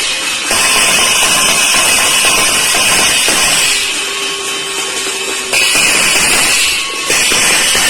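Loud, continuous din of steel plates being beaten and bells rung, with metallic ringing that keeps breaking off and starting again; a steady low tone sounds for about a second and a half midway.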